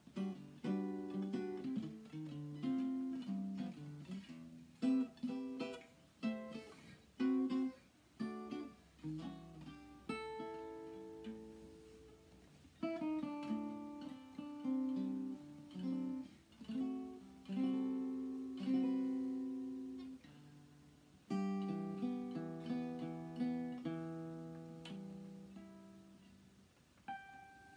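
Archtop guitar played solo, chords and melody notes plucked together and each left to ring and decay, at a slow ballad pace. Near the end a single high note rings out on its own.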